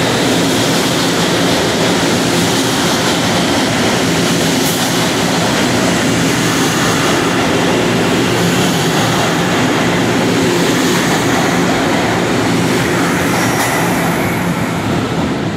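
Kawasaki R211A subway train running past along the platform: a steady, loud rumble of steel wheels on rail with a low motor hum. The sound begins to fall away near the end as the last car goes by.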